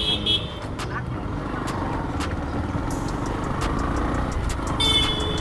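Small motorcycle engine running at low speed amid street traffic noise, with a vehicle horn honking briefly near the end.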